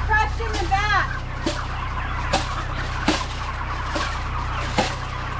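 Flock of white broiler chickens clucking and calling, with a run of bending calls in the first second. Short sharp clicks or knocks come about once a second, over a steady low hum.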